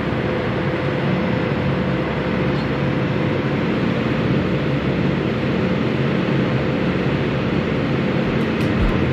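Airbus A320-214 cabin noise in flight: the steady drone of the CFM56 engines and the airflow around the fuselage, with a constant low hum.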